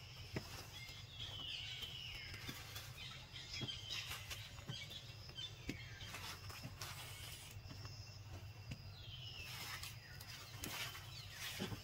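Several high calls that each slide down in pitch, a second or more apart, over a steady low hum of outdoor background, with scattered light clicks and rustles.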